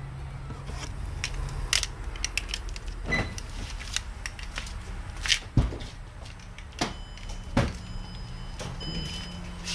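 Mercedes CLS55 AMG's supercharged V8 idling with a low, steady exhaust rumble, through a custom exhaust with the resonators and secondary cats removed and cutouts fitted. Scattered sharp clicks and knocks sound close by, the loudest about five seconds in.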